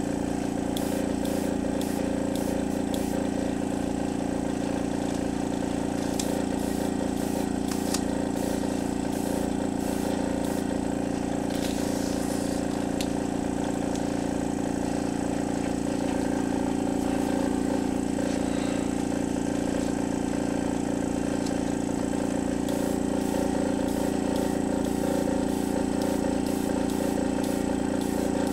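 Airbrush air compressor running steadily, with a regular low pulsing.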